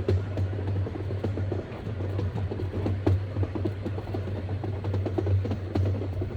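Rigi rack railway train running, heard from the driver's cab: a steady low motor hum under dense irregular clicking and rattling from the wheels and track.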